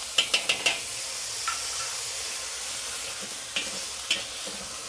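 Vegetables sizzling steadily in a very hot wok just after a splash of Shaoxing wine. The wok spatula clicks and scrapes as it tosses them, in a quick run of strokes in the first second and a few more later.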